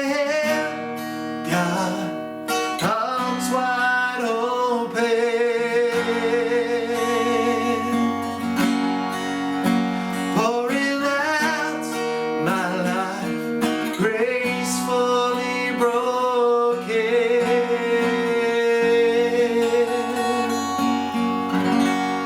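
Worship song: a singer over acoustic guitar and sustained chords.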